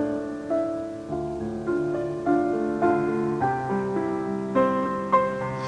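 Background piano music: a slow melody of sustained notes, a new note about every half second.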